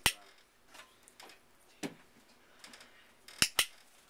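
Dog-training clicker snapping twice, each a sharp double click of press and release, once right at the start and again about three and a half seconds in. The clicks mark the puppy's sit for a food reward.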